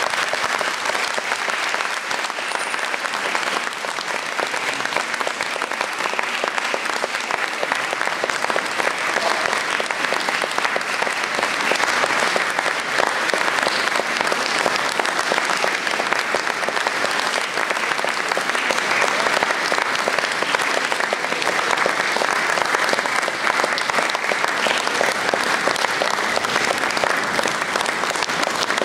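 Audience applauding: dense, even clapping that keeps up without a break.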